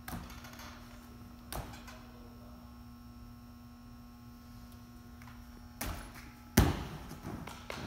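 A gymnast's feet landing on a balance beam with dull thuds, then a thud as she springs off the beam for her dismount and the loudest thud as she lands it on the mat, over a steady electrical hum.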